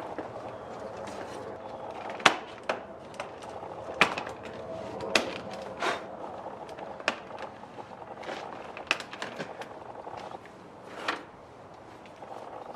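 Irregular sharp knocks and clacks of a plastic M3-style front bumper cover being handled and offered up to a BMW 3-series, about a dozen of them, the loudest about two seconds in.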